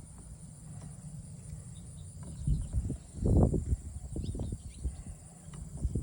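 Handling noise from fitting a door hinge: a few light clicks and several low bumps, the loudest about three and a half seconds in, over a steady low rumble.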